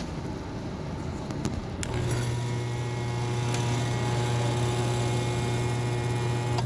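Daikin HVAC unit making a steady low hum with a fainter whine above it, starting suddenly about two seconds in after a few light clicks and cutting off suddenly near the end: the unwanted noise the unit makes.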